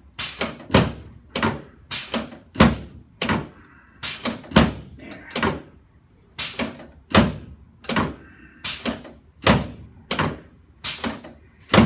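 A run of about eighteen sharp thuds from chiropractic adjusting thrusts on a padded treatment table, roughly one every half second in loose groups of two or three.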